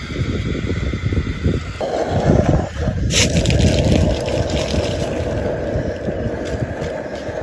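Fritters deep-frying in hot oil in a wok, a steady sizzle that comes in a little under two seconds in, over a low rumble of wind on the microphone. One short sharp click about three seconds in.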